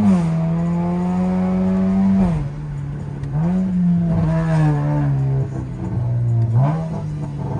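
2015 Acura TLX engine heard through a muffler-and-resonator-delete exhaust under changing throttle. The pitch climbs and holds, falls away about two seconds in, climbs again, sags, and jumps back up near the end.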